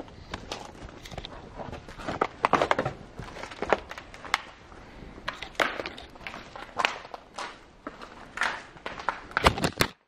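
Irregular footsteps and scuffs with sharper knocks and handling rustle, several loud clacks standing out; the sound cuts off abruptly near the end.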